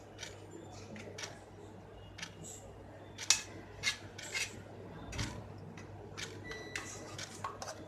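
Scattered light clicks and scrapes of a spoon against a cooking pot, as a lemon mixture is added a little at a time and stirred in.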